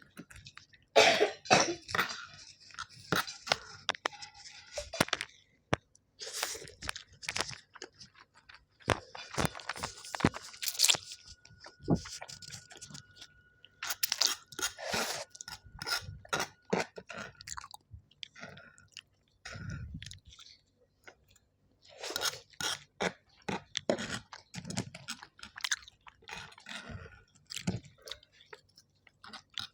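A person eating close to the microphone: wet chewing and crunching in irregular bouts, with short pauses between mouthfuls.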